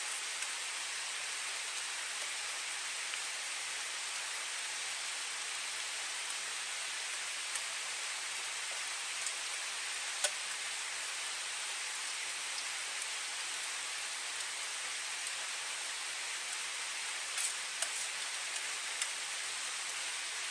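Steady rushing of a river close by, with a few light clicks of a metal spoon against a metal cooking pot, once about halfway through and a few times near the end.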